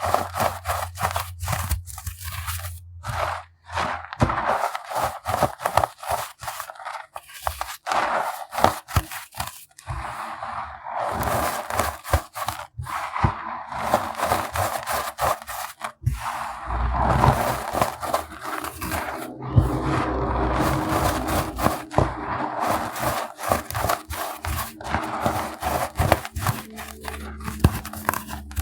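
Unsifted pebbles of compressed baking soda being crushed, a dense run of crisp crunches and crackles.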